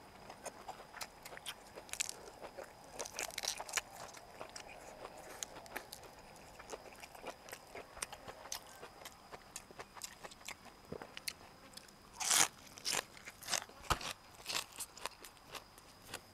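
Close-miked chewing of crisp fresh raw vegetables: a run of sharp crunches and wet chewing, with the loudest cluster of crunches about twelve seconds in.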